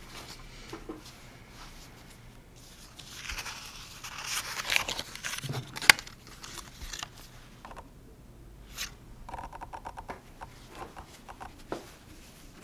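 Cotton baby sleeper rustling as it is handled and smoothed by hand. A sharp click comes about six seconds in as a snap fastener is worked, and a run of quick small ticks follows later.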